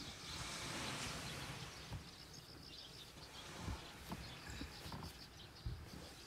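Faint, rapid, evenly repeated high chirping of insects, over a low wind rumble, with a few soft thumps of someone shifting on the bedding in the car's cargo area.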